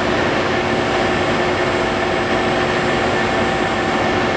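Acra knee-type milling machine's inverter-driven spindle head running at a steady speed: an even mechanical rush with several constant tones over it.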